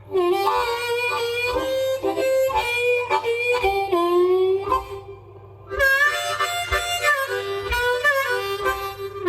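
Blues harmonica in G playing an instrumental solo, with bent, sliding notes and a short break about five seconds in. Low thumps keep the beat about every three-quarters of a second.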